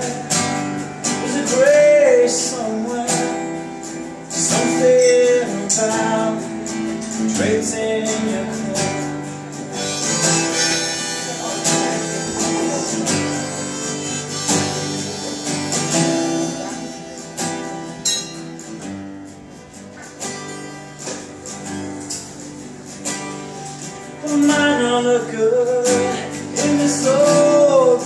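Live solo folk performance: a steel-string acoustic guitar strummed throughout, with a man singing near the start and again near the end, and a harmonica played in the middle stretch.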